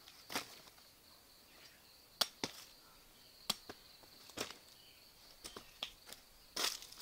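Scattered sharp snaps and cracks, about nine of them, as a banana plant's soft stem is broken apart and cut with a machete, over a faint steady high insect drone.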